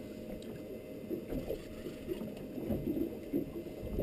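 Muffled low rumble of water against the hull of a small boat, with a few soft knocks.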